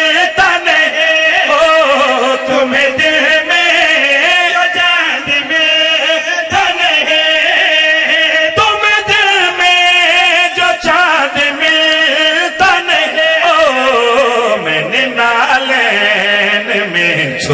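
Men chanting a devotional qaseeda through microphones, in a drawn-out, wavering melody that carries on without a break.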